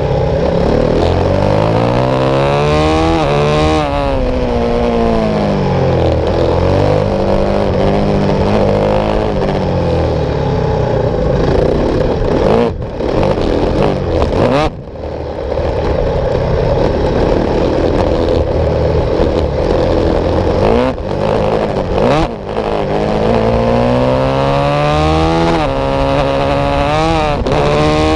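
Supermoto motorcycle engine heard from a camera mounted on the bike, revving hard through the gears: the pitch climbs in each gear and drops at each shift, again and again. Around the middle the throttle shuts briefly a few times, with one short, sudden cut.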